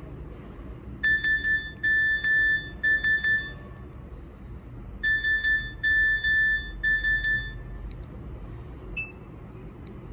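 Nokia 6303 Classic mobile phone playing a beeping alarm-style ringtone through its small speaker. A quick run of high, sharp beeps lasts about two and a half seconds, then repeats after a short pause.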